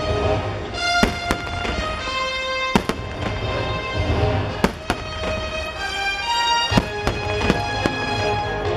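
Fireworks bursting in repeated sharp bangs, a dozen or so over a few seconds, over loud show music with sustained tones.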